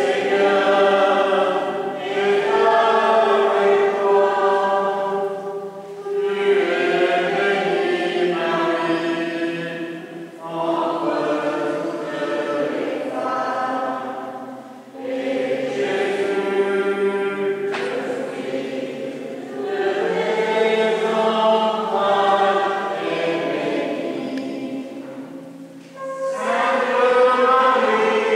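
Church singing: voices in a slow, chant-like sung liturgy, in phrases of a few seconds each with short breaks between them.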